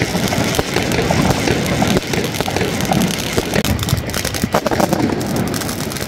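Fireworks popping and crackling, scattered sharp pops over a loud, dense background noise.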